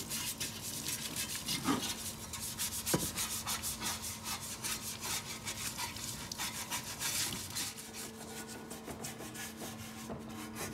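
Stiff brush scrubbing a sheet-metal engine part in a solvent parts washer: rapid back-and-forth rubbing strokes that ease off near the end, over a steady low hum.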